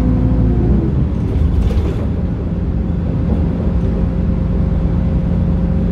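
Inside a 2009 MAN NM 243 city bus: the pitched whine of the MAN D0836 six-cylinder diesel and ZF Ecomat automatic transmission falls away in the first second as the bus slows. A short hiss of compressed air follows about a second and a half in, and then the diesel idles steadily.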